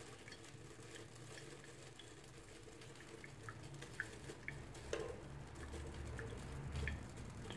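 Faint scattered drips and small pops of hot liquid over a low steady hum, with one light knock about five seconds in as a metal gooseneck drip kettle is picked up.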